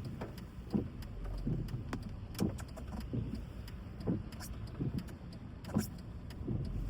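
Low steady rumble of a car, heard from inside, with scattered short taps at irregular intervals.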